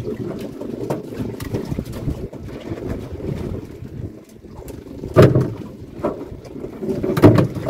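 Steady low rumbling noise of a small boat at sea, broken by two loud knocks about five and seven seconds in.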